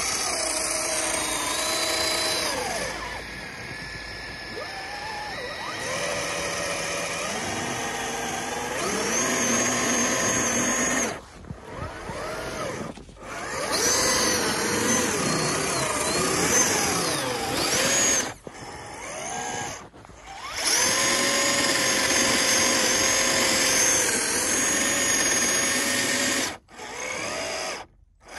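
Electric motors and geared drivetrains of RC off-road crawlers whining as they drive through deep snow. The pitch rises and falls with the throttle, and the sound cuts out briefly several times, including twice near the end.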